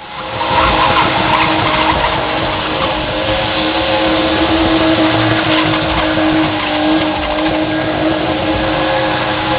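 A BMW's engine held at high revs in a burnout, its rear tyres spinning and squealing as the car drifts in circles. The engine note stays steady throughout.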